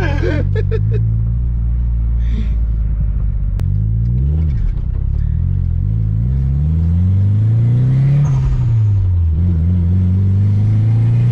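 Nissan 240SX's SR20 four-cylinder engine pulling the car along. Its pitch climbs, drops, climbs to a peak about eight seconds in, then falls and rises again as the car is driven.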